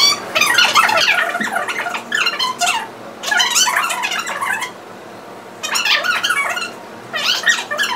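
Aerial yoga hammocks squeaking under the students' weight as they lean and stretch in them. The squeaks come in five or so irregular bursts, over a faint steady hum.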